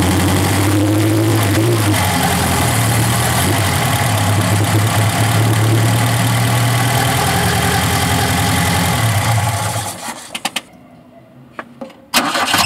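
Chevette's OHC four-cylinder engine idling steadily, with a slight rise in revs about a second in. About ten seconds in, the sound dies away to a quiet stretch with a few clicks, then the engine sound comes back abruptly near the end.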